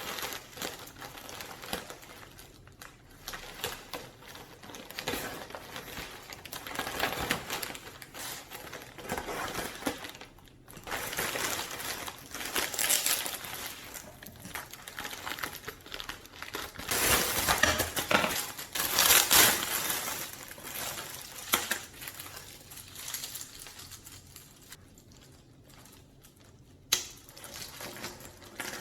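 Packaging crinkling and rustling as a parcel is handled and unpacked, in irregular bursts with the loudest rustling about two-thirds of the way in and a single sharp click near the end.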